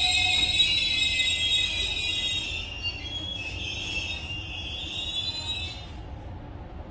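Korail Line 1 electric train braking into the platform, with a high-pitched squeal of several wavering tones over a low rumble. The squeal fades out as the train comes to a stop about six seconds in.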